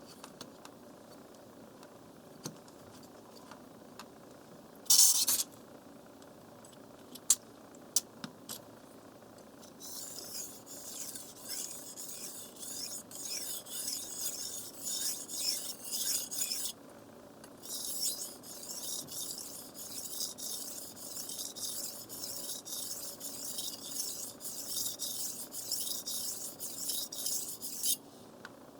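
Knife blade stroked back and forth across a wet water whetstone: a run of repeated rasping strokes that starts about a third of the way in, pauses briefly past halfway, then carries on. Before the strokes there are a few light clicks and one short knock.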